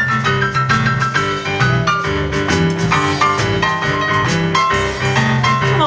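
Live blues band playing an instrumental passage: electric stage piano leading with quick runs of notes over a walking upright double bass, with a steady percussive beat.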